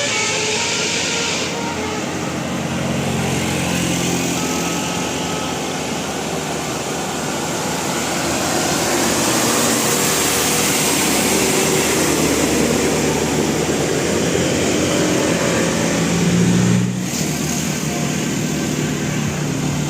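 Road traffic noise: a vehicle's engine and tyres passing close by, swelling to their loudest midway. An abrupt cut about 17 seconds in leaves a lower, steadier engine hum.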